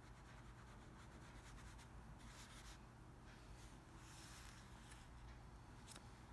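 Near silence with faint soft swishes of a paintbrush, stronger a couple of times midway, and a light click near the end.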